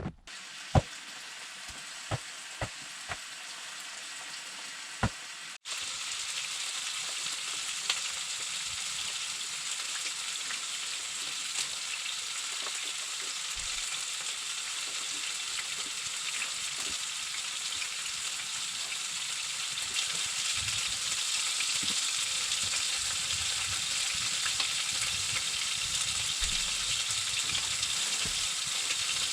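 Food frying in a pan: a steady sizzle, with a few sharp knocks in the first few seconds. It breaks off for an instant about five seconds in, then carries on, getting a little louder later.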